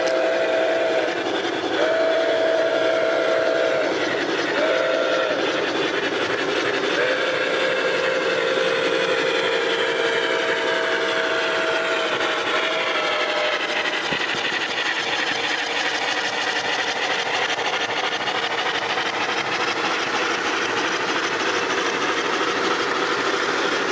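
Model steam locomotive's chime whistle, several notes together, blowing the grade-crossing signal: long, long, short, long, the last blast held for several seconds. The train's steady running noise goes on underneath.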